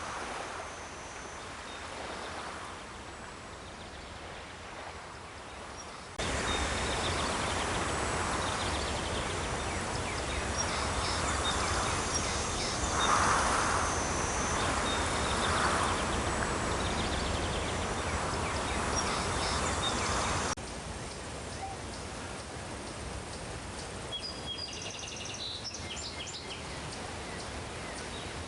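Daytime outdoor ambience of birds chirping and insects over a steady background hiss. A louder, fuller stretch of the ambience cuts in abruptly about six seconds in and drops back just as abruptly about twenty seconds in; a quick burst of high chirps comes near the end.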